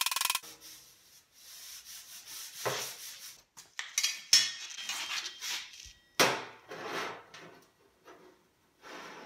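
A last hammer blow ringing on the bare sheet-metal fender, then tools being put down and picked up and something rubbing and scraping across the metal, with a sharp click about four seconds in.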